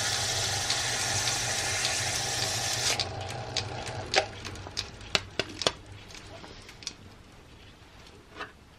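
120-grit sandpaper held against white oak spinning on a metal lathe, a steady hiss over the lathe's motor hum. The hiss stops about three seconds in as the paper is lifted off, and the motor hum fades about a second later. A series of sharp clicks and knocks follows.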